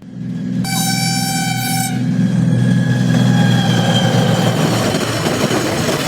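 Steam train whistle sound effect, altered as a sound variation, blowing one long steady note over a low drone. It starts abruptly, and its upper overtones are brightest in the first couple of seconds.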